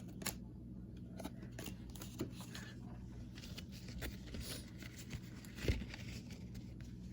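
Baseball trading cards being handled, squared up and shuffled by hand: soft, scattered clicks and rustles.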